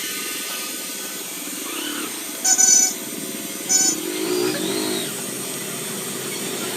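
Road traffic running past, with a vehicle horn sounding twice: a longer honk about two and a half seconds in and a short one just under four seconds in.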